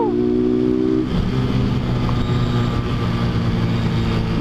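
Motorcycle engine running under way with road and wind noise. Its note drops to a lower pitch about a second in, then holds steady.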